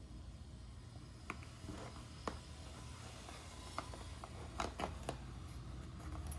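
Scattered light clicks and taps, about half a dozen over a few seconds, against a steady low hum: a wristwatch and its packaging being handled.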